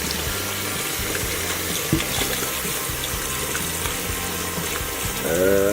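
Water running steadily from a tap into a sink while slime is rubbed and rinsed off hands and arms.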